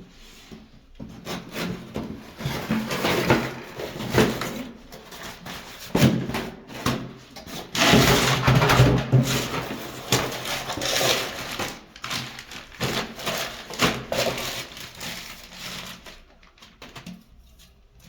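Irregular rubbing, scraping and knocking of parts being handled and fitted together during plumbing installation work, with scattered clicks, louder in the middle stretch and dying down near the end.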